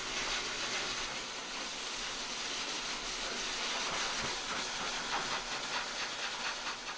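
High-velocity pet dryer blowing air in a steady hiss.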